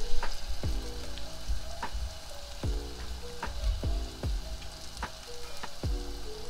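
Batter-coated cauliflower florets sizzling as they deep-fry in hot oil, a steady crackling hiss. Background music with a beat plays underneath.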